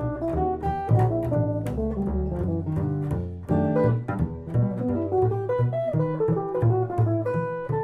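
Instrumental jazz: an archtop guitar plays a line of single plucked notes over a plucked upright bass.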